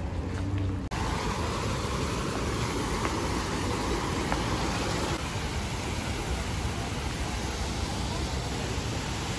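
Steady rushing background noise that starts abruptly about a second in.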